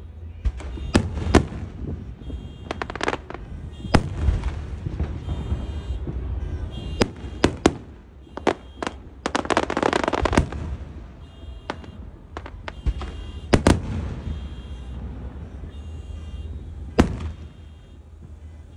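Fireworks going off: a string of sharp bangs every second or two, with a dense burst of crackling about halfway through. A car alarm beeps in the background, set off by the noise of the fireworks.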